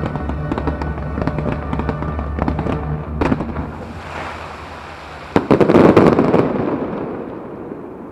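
Aerial fireworks bursting and crackling over show music, with a dense volley of bangs and crackles about five and a half seconds in as the loudest moment, after which the bursts die away.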